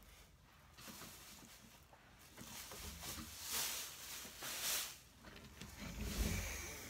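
Rustling, sliding and rubbing of craft tools being rummaged and handled, as a plastic envelope punch board is brought out. The noise comes in a few louder bursts around the middle, with a low bump near the end.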